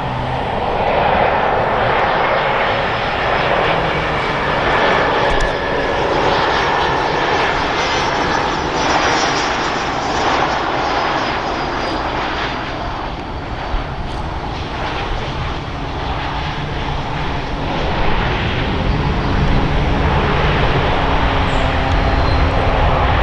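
Airbus A220 jet engines (Pratt & Whitney PW1500G geared turbofans) running, a steady jet rush with a faint high whine, growing a little louder near the end.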